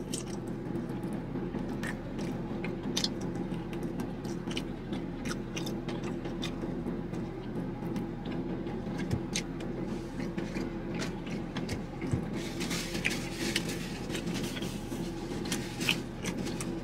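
Close-up eating of fried chicken wings: chewing with wet mouth clicks and smacks over a steady low hum. A denser crackly rustle comes near the end.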